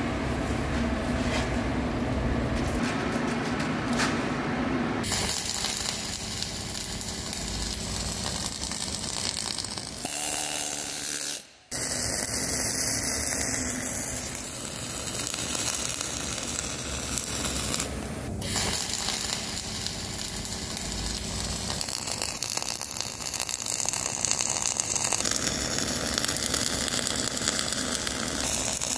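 MIG welding arc crackling and hissing steadily as weld beads are laid, in several stretches that change abruptly from one to the next, with a brief dropout about eleven seconds in.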